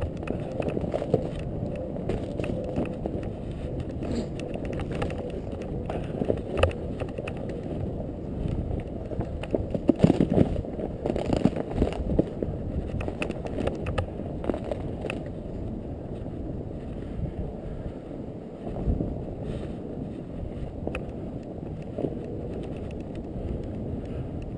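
Fat bike being ridden through snow: a steady low rumble from the wide tyres and bike, with scattered knocks and rattles that are busiest about ten to twelve seconds in.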